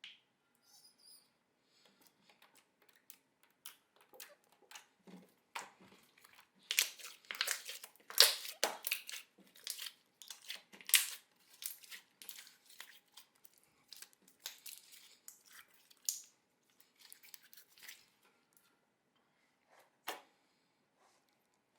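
Store-bought slime being handled by hand, giving irregular sticky pops and crackles. They come thickest about seven to eleven seconds in, and a last single pop comes near the end.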